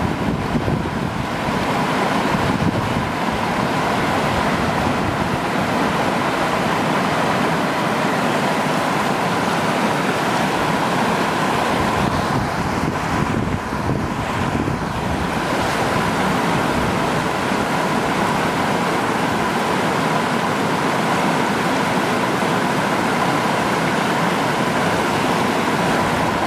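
Steady rushing of fast-flowing stream water, an even unbroken noise.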